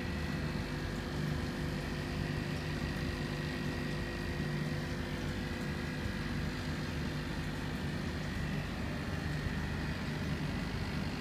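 Steady hum and hiss of aquarium equipment running, with a few held hum tones and no change throughout.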